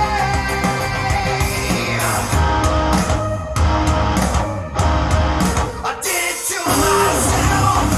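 Rock/metal song with singing and guitars played through a pair of KEF Q150 bookshelf speakers, recorded in the room by microphone; the bass briefly drops out about six seconds in.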